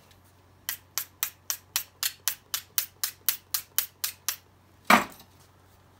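A knife being honed with rapid metal-on-metal strokes, about fifteen of them at roughly four a second, followed by one louder knock just before the end.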